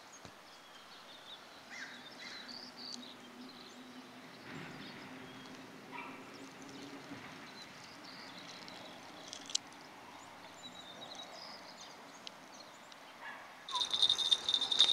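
Quiet riverbank ambience with a few faint bird chirps. About a second before the end, a loud metallic jingling starts as a fishing rod is taken up and worked.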